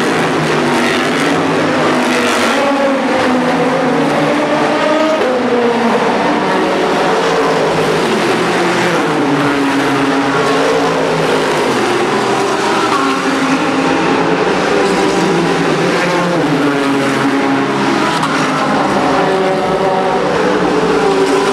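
A field of sports racing cars running at speed, many engine notes overlapping and rising and falling in pitch as the cars come past one after another.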